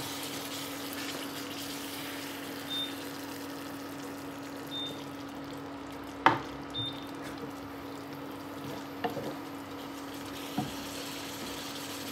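Beef rendang sizzling in a non-stick frying pan over a steady low hum, while a wooden spatula stirs and knocks against the pan a few times, loudest about six seconds in.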